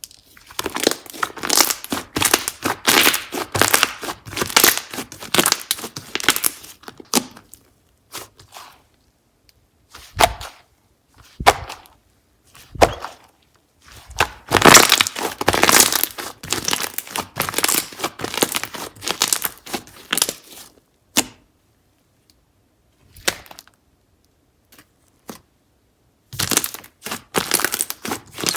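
Slime being worked by hand, giving dense runs of small clicks and pops, with a few quieter gaps between the runs.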